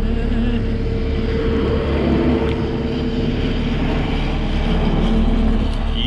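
Camper van driving in wind and rain: a steady, loud low rumble of engine and road, with a constant rushing wind-and-rain noise over it.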